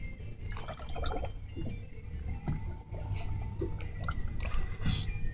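Water lapping and dripping against the hull of a drifting boat, with scattered small clicks and splashes over a low steady rumble.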